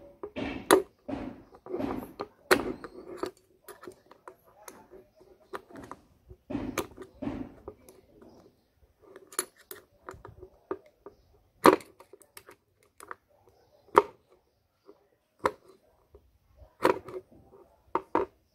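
Thin screwdriver prying and scraping at the seal in the hub of a Honda Shine's cast-metal front brake panel, giving irregular sharp metal clicks and taps with short scraping noises between them. The loudest clicks come about twelve and fourteen seconds in, and a quick cluster follows near the end.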